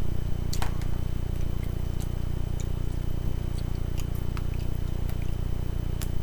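A fork clicking and scraping now and then in a plastic salad container, about six short sharp clicks, over a steady low hum.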